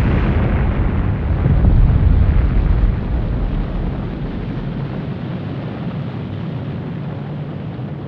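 Atomic bomb explosion: a deep, loud rumble that swells over the first couple of seconds and then slowly dies away.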